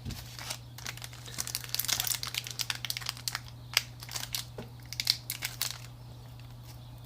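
Foil wrapper of a Pokémon trading card booster pack being handled and crinkled, a dense run of crackles that thins out near the end.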